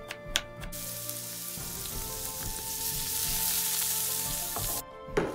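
Two strokes of a kitchen knife cutting carrot on a wooden board, then julienned carrot strips sizzling as they fry in oil in a pan for about four seconds. A sharp knock near the end is the loudest single sound.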